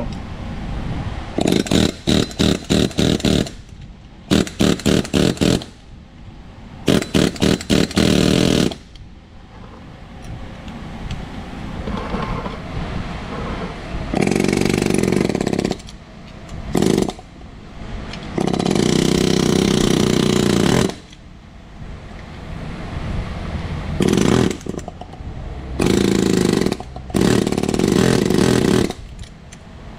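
Snap-on PH3050B pneumatic air hammer hammering on the steel of an old control arm to drive a part out of it. In the first nine seconds it fires in short, quick trigger blips; later it runs in longer bursts of a second or two.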